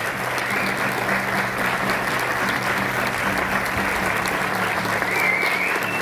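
Theatre audience applauding steadily, with an acoustic guitar playing underneath.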